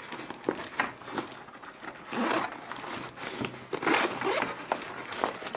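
Zipper on a nylon tactical sling bag being pulled open in several short pulls, with rustling of the bag's fabric.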